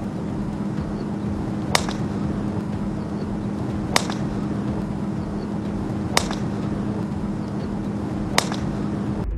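Golf club striking a ball off the tee: a sharp crack, four times at even spacing about two seconds apart, over a steady low hum that cuts off just before the end.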